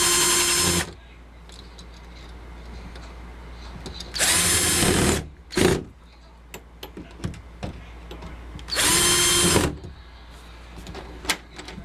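Electric drill running in three short bursts of about a second each, its motor whine rising and falling at each start and stop. There is a sharp click between the second and third bursts, with small ticks and knocks in the pauses.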